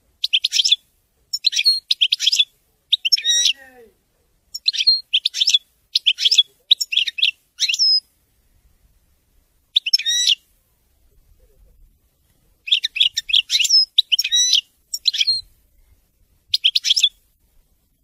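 European goldfinch singing in the song style that fanciers call 'wedani': short runs of rapid, twittering high notes separated by pauses, with a longer break a little after halfway.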